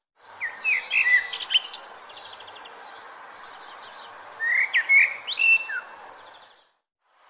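Songbird singing two bursts of short, clear whistled notes with quick rising and falling slurs, with small rapid trills between them, over a steady background hiss. The sound fades out briefly at the start and again just before the end.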